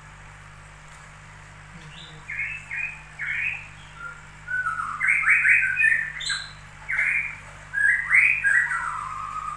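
A bird calling in a series of short, loud chirps and squawks, some falling in pitch, in bursts from about two seconds in.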